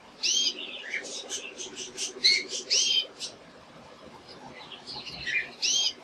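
Male domestic canary singing: a rapid run of bright chirps and quickly repeated notes for about three seconds, then a shorter phrase near the end.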